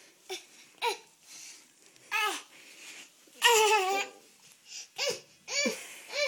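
A toddler's high-pitched babbling and laughing in a string of short calls, the loudest and longest about three and a half seconds in.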